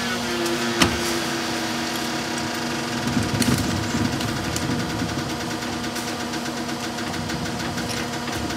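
Freightliner M2 106 rear-loader garbage truck's engine idling with a steady hum. A sharp knock comes about a second in. A few seconds in, a plastic wheeled trash cart rumbles over the pavement as it is rolled to the truck.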